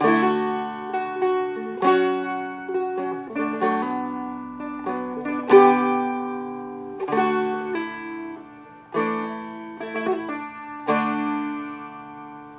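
Seagull Merlin M4, a four-string fretted strum instrument, played slowly: a run of strummed chords and picked notes, each left to ring out before the next.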